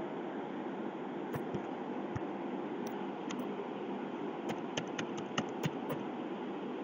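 Scattered clicks of a computer keyboard and mouse over a steady background hiss: a few isolated clicks, then a quicker run of them about five seconds in.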